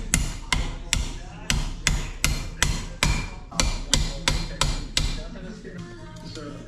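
Small hammer tapping a metal setting tool down onto a bicycle fork's steerer tube: about a dozen sharp metal-on-metal strikes, two to three a second, stopping about five seconds in.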